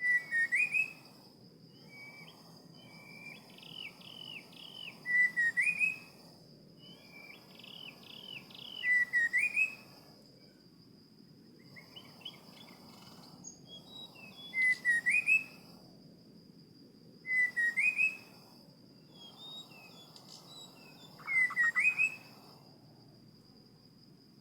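A songbird calling in short, loud whistled phrases that end in a quick rising note, repeated every three to four seconds with softer calls between them. A steady high-pitched whine runs underneath.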